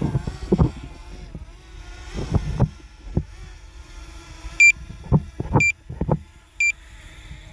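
Three short, identical electronic beeps about a second apart, over scattered knocks and a low rumble of handling and wind noise.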